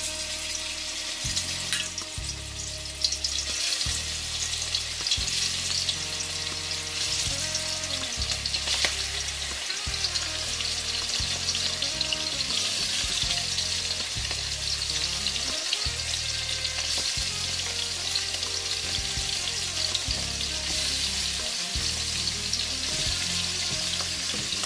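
Seasoned pork belly pieces sizzling in hot coconut oil in a cast-iron Dutch pot as they are laid in one at a time to sear and brown. The steady frying sizzle grows a little louder a few seconds in.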